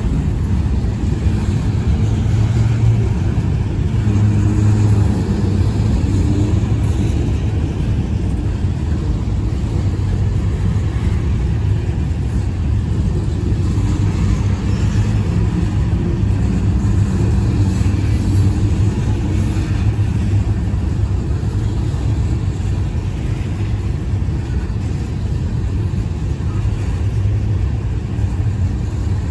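Covered grain hopper cars of a freight train rolling past: a steady, continuous rumble of steel wheels on the rails.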